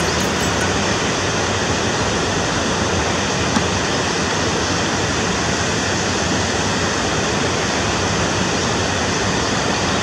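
Water pouring over a low river weir: a steady rush of falling and churning water.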